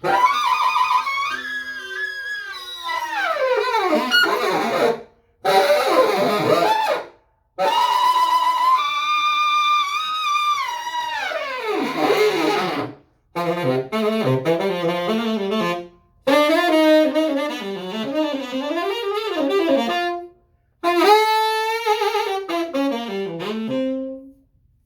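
A freshly overhauled and repadded 1950s Martin Committee tenor saxophone played solo: several short melodic phrases with quick falling runs, separated by brief breaks for breath.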